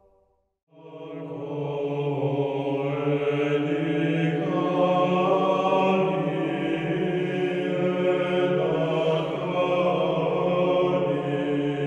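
Choral church chant: long held notes sung over a steady low drone, starting after a brief silence about a second in.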